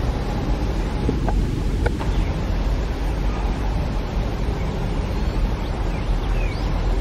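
Wind buffeting the microphone: a steady low rumbling noise, with a few faint short high chirps in the second half.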